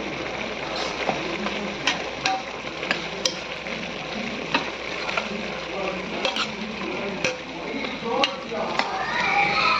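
Chicken and chopped tomatoes being stirred in a pot: a steady sizzle broken by irregular clicks and knocks of the spoon against the pot.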